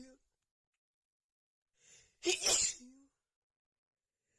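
A woman sneezing, part of an allergic sneezing fit brought on by cats. The end of one sneeze fades out at the very start. About two seconds in there is a quick in-breath, then one forceful sneeze that ends in a short voiced 'ah'.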